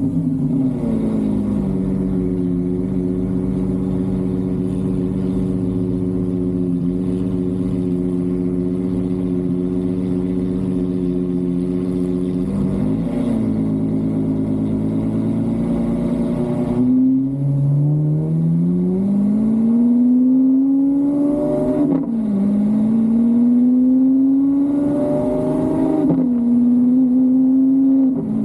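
A car engine holds a steady note for about sixteen seconds, then accelerates. Its pitch climbs and drops back twice, a few seconds apart, as it shifts up through the gears.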